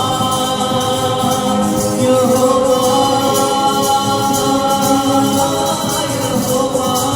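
Christian worship song: a group singing together with musical accompaniment, on long held notes.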